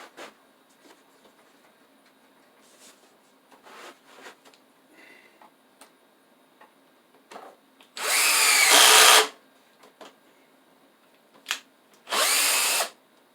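Power drill running in two short bursts, the first about a second long and the second a bit shorter, as it drives screws into wood. Light knocks and clicks of handling come between them.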